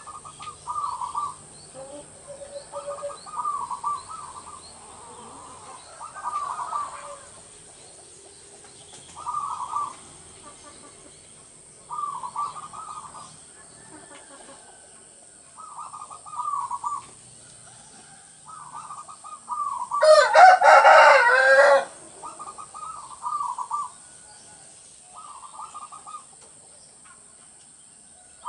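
Caged zebra doves (perkutut) cooing: short rolling coo phrases repeated about every three seconds. About two-thirds of the way through, a much louder call lasting about two seconds stands out over them.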